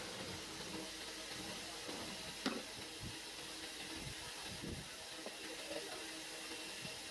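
Handling noises of a metal snail horn being assembled by hand. There is one sharp metallic click about two and a half seconds in and a few soft knocks after it, over a steady background hiss.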